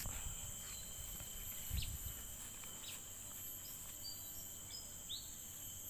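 Steady high-pitched chorus of insects, with a few short faint bird chirps and a brief low bump about two seconds in.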